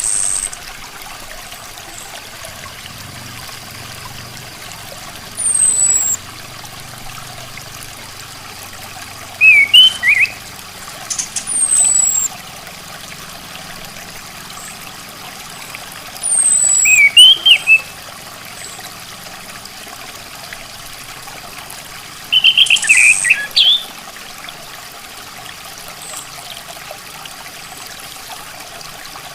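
Orange-headed thrush calling: thin, high notes that slide downward, plus short quick phrases, in bursts every five or six seconds. Steady trickling water runs underneath.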